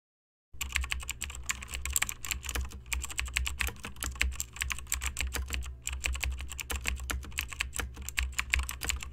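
Computer keyboard typing: a fast run of key clicks over a steady low hum, starting about half a second in and stopping abruptly at the end.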